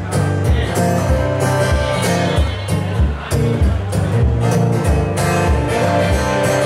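Live acoustic guitar music, strummed in a steady, even rhythm with low bass notes under it.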